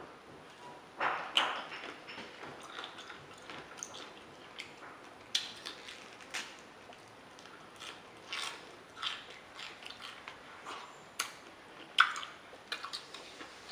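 Close-up eating noises from a person eating spicy pickled calamansi: a few gulps of drink from a plastic jug about a second in, then scattered wet, sharp chewing clicks and squishes. The loudest click comes near the end.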